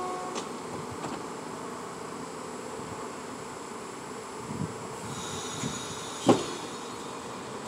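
R46 subway train standing at the platform with its doors closed, its equipment giving off a steady electrical buzz. A faint high whine comes in about five seconds in, and a single sharp clunk follows a little over a second later.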